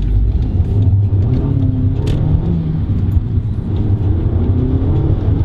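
SEAT Cupra's turbocharged petrol engine heard from inside the cabin while accelerating, its note rising twice over a steady low rumble of road noise.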